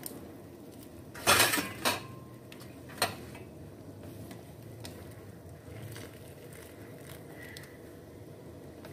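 Wire mesh strainer and chopsticks knocking and scraping against a metal wok while noodles are lifted out of the cooking water: a loud clatter about a second in, another knock just after it, and a sharp clink at about three seconds, with a steady low hiss from the pot between.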